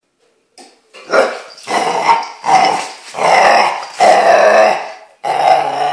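Small puppy growling and barking in play, a string of about six loud growls and barks.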